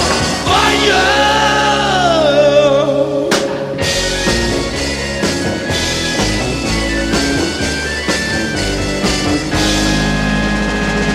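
Psychedelic rock music playing. A singer holds a long note that slides downward in the first few seconds, then the band plays on.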